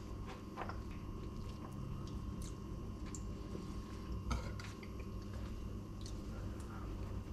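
Toasted tortilla of a chicken taco crackling and crunching in small scattered clicks as hands pull it apart, over a steady low hum. One sharper clink about four seconds in, a fork knocking against a metal bowl.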